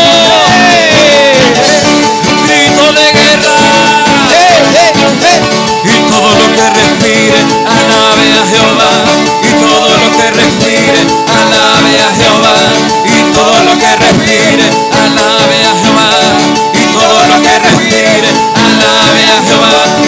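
Live church praise band playing loud, upbeat Latin-style worship music with a steady beat, an instrumental stretch between sung lines.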